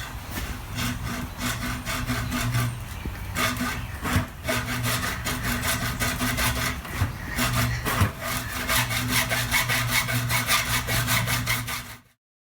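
Hand saw sawing through a tube in a steady run of back-and-forth strokes, cutting off abruptly just before the end.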